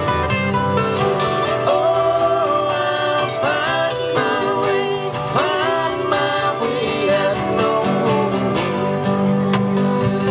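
Background acoustic country-style music with plucked guitar and a lead line that slides between notes.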